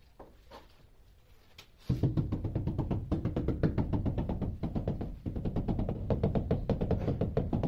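Rubber mallet tapping a ceramic wall tile over and over to bed it into fresh mortar. The rapid tapping starts suddenly about two seconds in.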